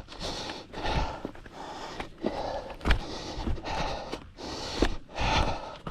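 Hard, fast breathing of a runner out of breath, a breath about every 0.7 s, with a few footfalls.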